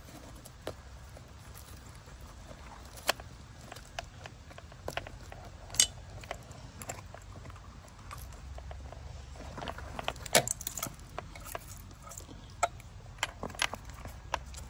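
Handling noise from an e-bike dual-battery wiring harness: plastic connectors and cables clicking and rattling in the hands, with scattered sharp clicks and taps, the loudest about three, six and ten seconds in, over a low steady rumble.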